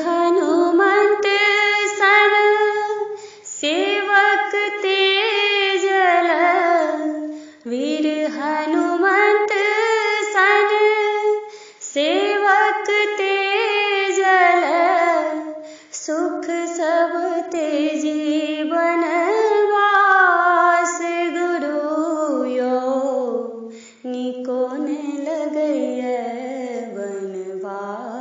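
A woman singing a Maithili parati (devotional morning song) unaccompanied, in wavering phrases of about four seconds each with short breaths between them. Near the end the line drops lower and grows softer.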